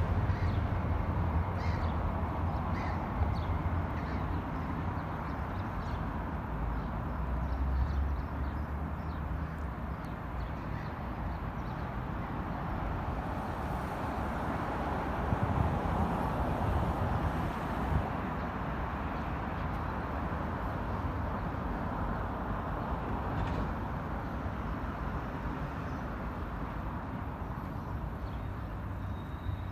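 Steady city traffic rumble, with a crow cawing.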